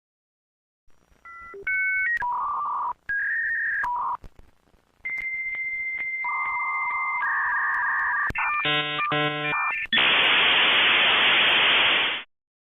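Electronic sound effect: a string of short beeps at changing pitches, a long steady high tone joined by lower tones, a quick run of pulsed chirps, then about two seconds of even hiss that cuts off suddenly.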